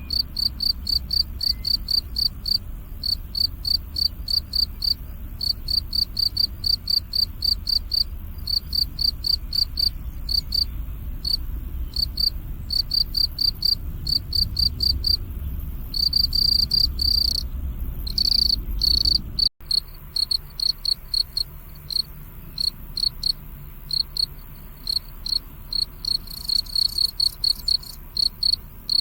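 Crickets chirping in a fast, even run of high-pitched pulses, with a few longer trills about two-thirds of the way through and a faint low rumble underneath.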